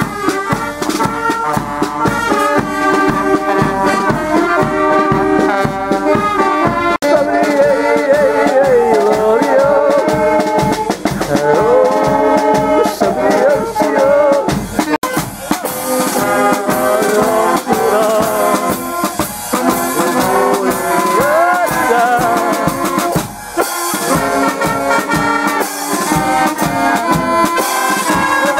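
Brass band with trumpets, trombones and drums playing a tune with a steady beat.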